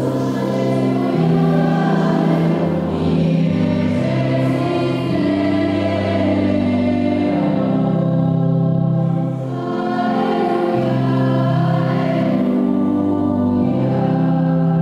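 A small choir of girls and women singing a church song together in long held notes, rehearsing the singing for Mass.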